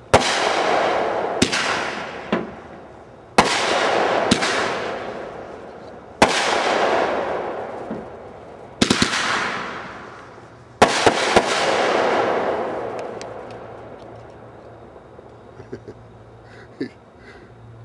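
Aerial fireworks bursting overhead: five loud booms every two to three seconds, each rolling away over a couple of seconds, with smaller sharp pops in between. The sequence dies away after about thirteen seconds.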